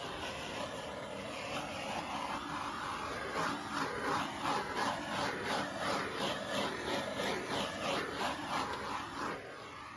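Small handheld gas torch flame hissing over wet acrylic paint for a final torching pass. The hiss swells and fades about twice a second from about three seconds in, and stops right at the end.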